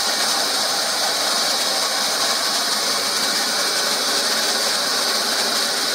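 Hot-air plastic welding gun running steadily, its fan blowing with the heat turned down so the gun cools off.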